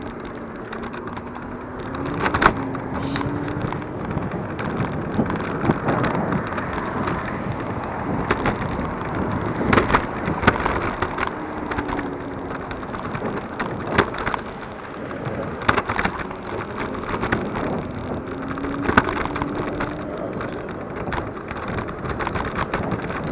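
Superpedestrian electric scooter in motion: steady wind and tyre rumble, with frequent sharp knocks and rattles as it rolls over bumps in the pavement. A faint whine rises and falls a few times.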